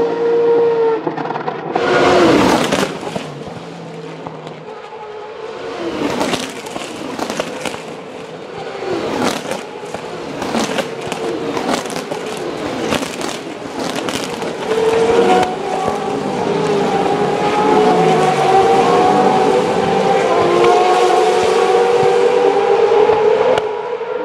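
Formula Renault 3.5 cars' 3.4-litre naturally aspirated V8 engines at racing speed: several cars braking and downshifting, the pitch falling in steps with sharp cracks from the exhausts. From about fifteen seconds in, the engines pull hard at high revs, their note climbing slowly.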